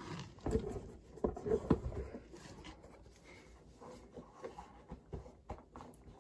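Handling of a model locomotive's packaging: soft rustling and scattered small taps and clicks, busiest in the first two seconds and sparser after.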